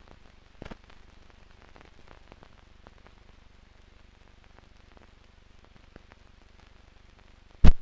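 Faint crackle and scattered clicks from dust and scratches on a 16mm film's optical soundtrack, running with no program sound, with one loud pop near the end.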